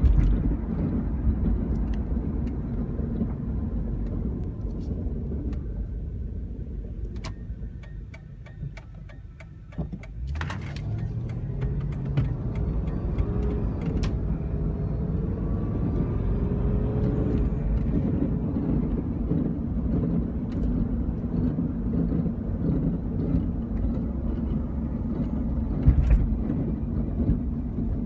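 2000 Jeep Grand Cherokee with the 4.7-litre V8 making a low, steady grinding rumble from the drivetrain, the symptom of a bad front driveshaft. It dies down with rapid clicking for a couple of seconds, then rises in pitch as the vehicle speeds up again about ten seconds in.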